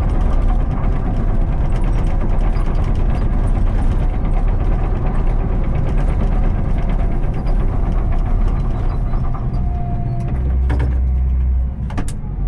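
Heavy diesel machine engine running steadily with a dense rattling clatter. About ten seconds in, a deep hum swells for about a second.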